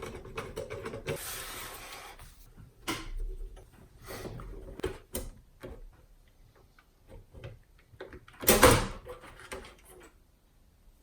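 Hand-work on a car's plastic head-unit assembly: scattered clicks, light knocks and a brief scrape as screws are undone and trim parts are handled, with one louder clatter about eight and a half seconds in.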